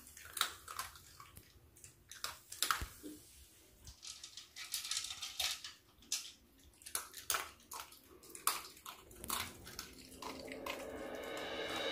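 Pomeranian–spitz mix dog eating dry kibble from a bowl: faint, irregular crisp crunches and clicks as it chews.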